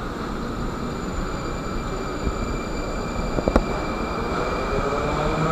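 Aleksandrovets metro train pulling away from the platform: a steady high electrical whine over a rumbling hum, with one sharp clack about three and a half seconds in, and a rising motor whine starting near the end as the train picks up speed.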